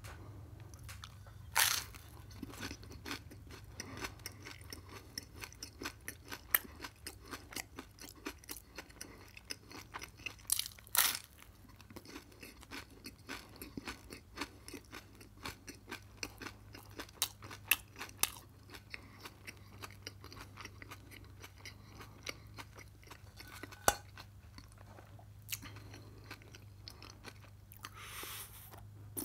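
Close-miked eating of an open-faced dark-bread sandwich topped with cheese and raw radish slices: a loud bite about two seconds in and another about eleven seconds in, with steady crunching and chewing clicks between and after. Near the end comes a sip from a glass.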